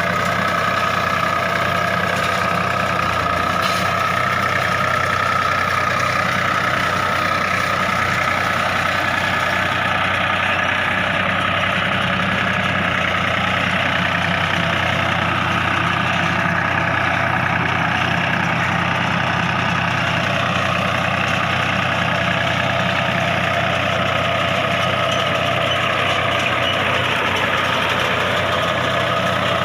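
New Holland 4710 tractor engine running steadily at constant speed, an even diesel drone with no change in pitch.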